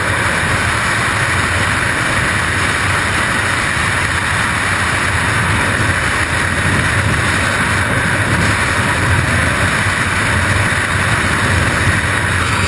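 Loud, steady rush of freefall wind buffeting a skydiver's camera microphone.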